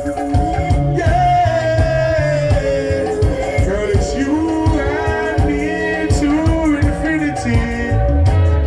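Live reggae band music playing, with a steady drum and bass beat under a held, gliding melody line.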